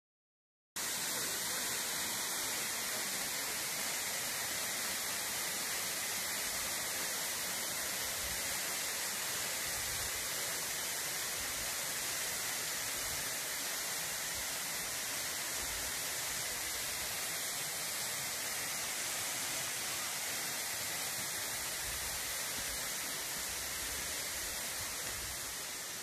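Waterfall pouring over rock slabs into a pool, a steady rushing hiss of falling water that starts just under a second in and grows a little fainter near the end.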